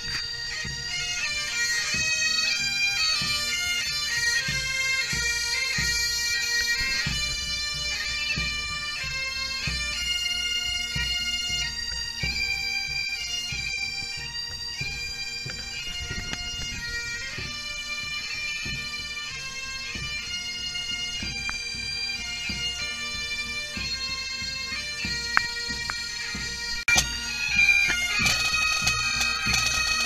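Pipe band playing: Highland bagpipes carry a melody over their steady drone, with drums beating along. A few sharper, louder drum hits come near the end.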